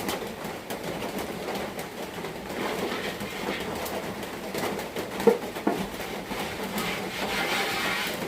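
Rain drumming steadily on a corrugated iron-sheet roof, a dense patter of small ticks, with one sharp knock about five seconds in.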